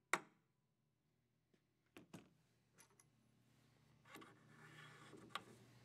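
Mostly near silence with a few faint metal clicks and taps: a sharp click just after the start, two quick clicks about two seconds in, and softer taps later, as a BCS two-wheel tractor's PTO shift rod is handled and slid out of its transmission case.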